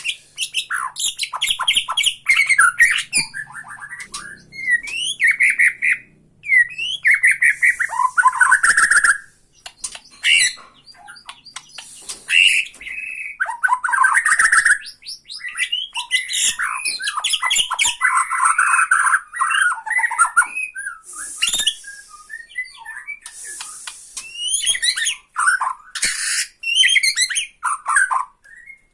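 Bornean shama (murai batu Borneo) singing a loud, varied song of whistled phrases, quick trills and harsh rattling chatters, the 'tretekan' song used to provoke rival shamas.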